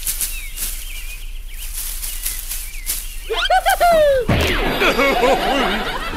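Cartoon sound effects: bird chirps over a rustling, then a falling whistle about three and a half seconds in that ends in a thud, followed by a wobbling warble and another thud at the end.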